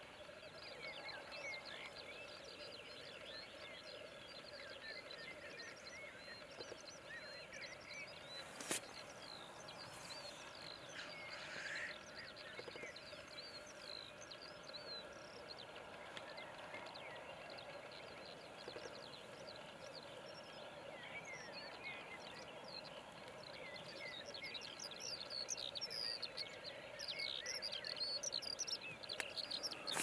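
Black grouse lekking, the males' continuous low bubbling display calls forming a steady chorus, with small birds chirping over it, busier and louder in the last third. A single sharp click about nine seconds in.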